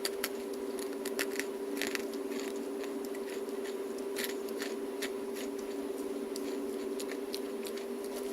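Crunchy, slightly burnt cheese sticks being bitten and chewed close to the microphone: scattered irregular crisp crunches, most of them in the first two seconds. A steady low hum runs underneath.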